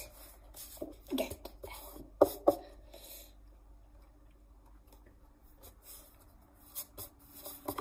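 Eraser and pencil rubbing and scratching on a sheet of paper in short strokes, with two sharp knocks a little after two seconds in, then a quieter stretch with a few faint scratches near the end.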